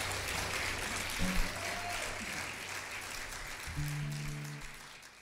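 Church congregation applauding as the worship band's last chord dies away, with a couple of held low instrument notes about four seconds in. The sound fades out at the end.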